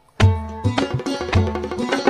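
Instrumental song intro with a steady drum beat and a melody, starting a moment in after a brief silence.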